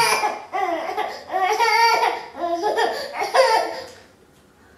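High-pitched laughter in a run of short peals, dying away about four seconds in.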